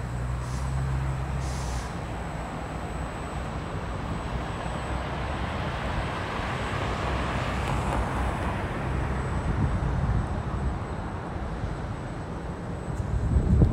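Street traffic: a motor vehicle's engine running low throughout, and a vehicle passing that swells and fades about halfway through. A low thud near the end.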